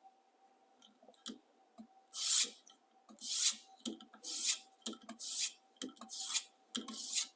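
A 400-grit sharpening stone drawn along the edge of a high-carbon stainless slicer blade: six even rasping strokes, about one a second, starting about two seconds in after a few light clicks.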